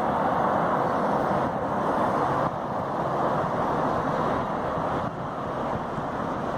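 Steady rushing hum of distant freeway traffic on the highway far below, with a slight drop in level about two and a half seconds in.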